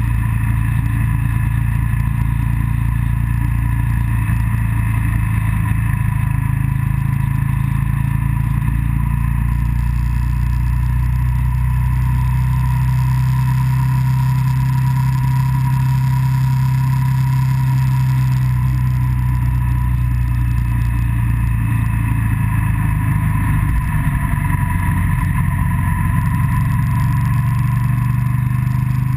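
Motorcycle engine running steadily at cruising speed, its note drifting only a little in pitch, with wind and road noise.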